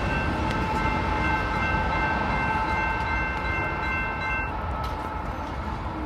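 Railroad grade-crossing warning bell ringing over the low rumble of a loaded coal train moving away. The bell stops about four and a half seconds in, as the crossing clears and the gates begin to rise.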